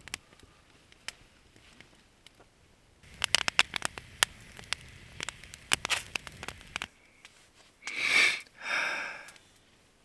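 Two loud sniffs, about a second apart near the end, after several seconds of scattered sharp crackling clicks.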